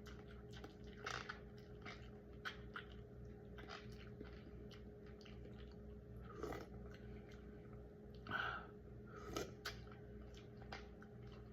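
Faint, close chewing and wet mouth clicks from someone eating khao poon, a spicy rice noodle soup with chicken feet. A few louder bites or slurps come about a second in and again in the second half, over a low steady hum.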